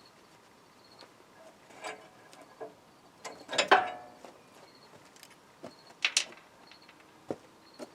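Hand tools knocking and clinking on metal parts as a machine is taken apart: a handful of separate sharp clanks, the loudest, a little past the middle, ringing briefly.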